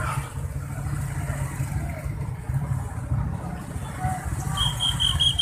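Steady low rumble of motorcycle and vehicle engines idling in stopped traffic, with a rapid run of short high beeps near the end.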